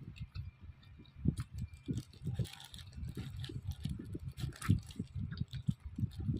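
A person chewing food close to the microphone: irregular soft smacks and mouth clicks.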